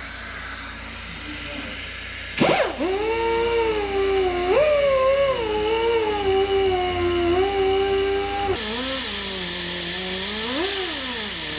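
Handheld rotary grinder grinding excess weld slag off a repaired cylinder head. After a knock about two seconds in, its high whine steps and sags in pitch as the burr bites and eases off. Near the end a louder gritty hiss joins and the pitch dips and climbs again.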